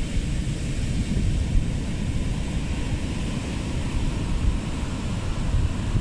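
Rough sea surf breaking and washing up the beach in strong wind, a steady churning hiss, with wind buffeting the microphone as a heavy low rumble.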